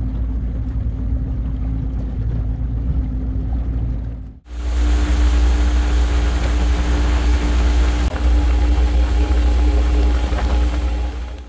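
Boat's outboard motor running steadily under way, a low hum with a rushing noise over it. It breaks off for a moment about four and a half seconds in and picks up again a little louder.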